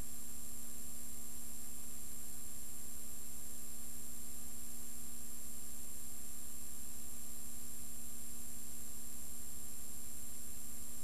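Steady electrical hum and hiss with a few constant high and low tones, unchanging throughout: the background noise of a transfer of a silent film, with no sound from the scene itself.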